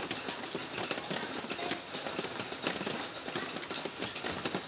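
Rain falling, drops striking a hard surface close by in a dense, irregular run of small taps.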